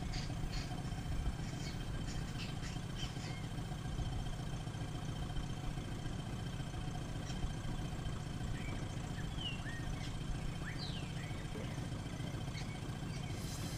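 Outboard motor idling with a steady low hum, under faint splashes of hands in the water and a few faint bird chirps.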